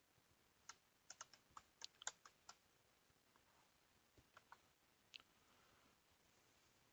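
Faint computer keyboard typing: a quick run of keystrokes in the first two and a half seconds, then a few more scattered clicks about four to five seconds in.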